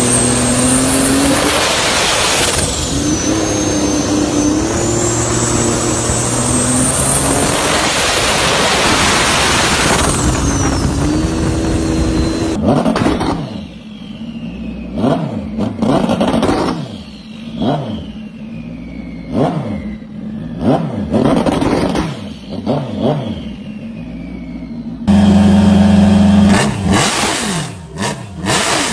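Turbocharged Rotax jet ski engine: first running hard with a high turbo whistle that dips and climbs again, then, after a cut, revved in about eight sharp blips with the turbo whistle falling away after each one. Near the end it runs loud and steady, then is blipped quickly several times.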